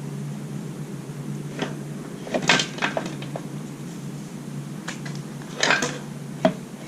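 Several sharp metallic clanks and knocks, loudest about two and a half and nearly six seconds in, as a motorcycle's rear wheel, axle and spacers are worked free of the swingarm, over a steady low hum.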